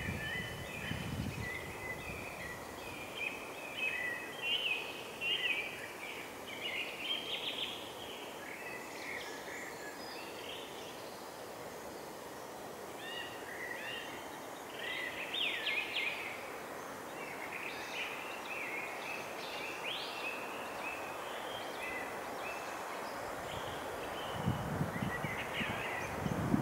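Songbirds singing in short chirping phrases over a steady outdoor hiss, the song thickest in the first several seconds and again about halfway through. Low rumbles come in at the very start and in the last couple of seconds.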